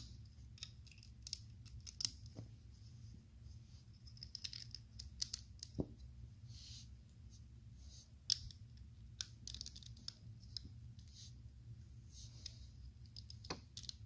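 Plastic LEGO bricks and tiles clicking and clacking as they are handled and pressed onto a model, in scattered small sharp clicks, loudest a little past a second in and just past eight seconds.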